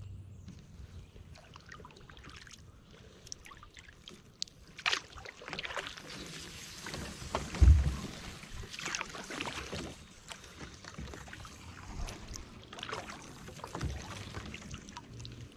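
Kayak paddle strokes: uneven splashes and drips of water off the blades every second or so, with a single loud low thump about halfway through.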